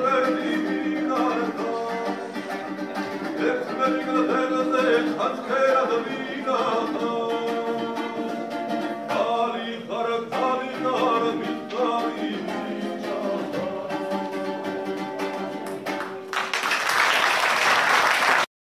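A woman singing a song to acoustic guitar accompaniment; the song ends about sixteen seconds in and the audience breaks into applause.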